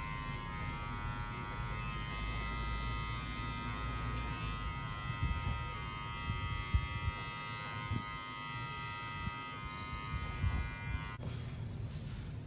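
Electric hair clipper running with a steady buzz during a low fade haircut, with a few dull knocks from handling; it switches off about eleven seconds in.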